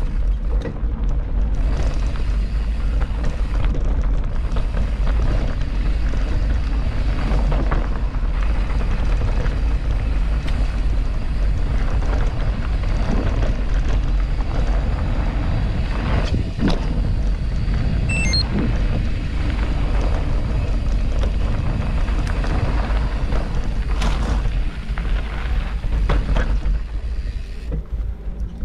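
A mountain bike being ridden over a dirt trail: steady heavy wind rumble on the microphone, with the tyres and the bike rattling and knocking over the ground. The noise eases a little near the end.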